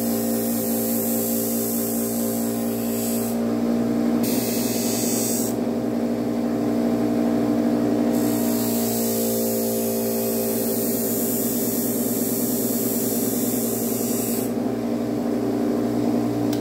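Electric motor spinning MDF stropping wheels with a steady hum, while the edge of a Cold Steel OSS fixed-blade knife is drawn across the wheel in honing passes: a hissing scrape in three stretches, the first two short and the last one long. The scraping stops about two seconds before the end as the blade comes off the wheel, leaving the motor running.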